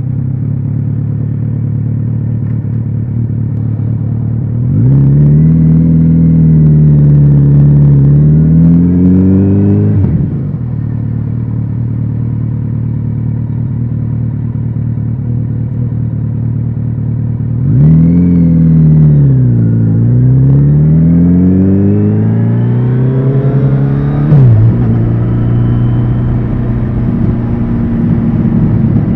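Kawasaki Z900RS inline-four engine with a BEET exhaust, idling steadily. About five seconds in it runs up in revs and wavers for about five seconds before dropping back to idle. It rises again near the 18-second mark, climbs steadily, then falls back to idle near the end.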